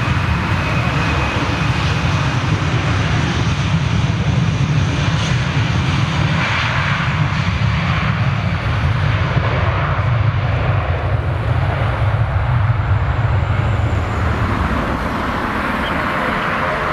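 Boeing 757-200's twin jet engines at takeoff thrust during the takeoff roll: a loud, steady deep rumble with a thin high whine that fades after the first couple of seconds. The low rumble eases near the end as the jet lifts away.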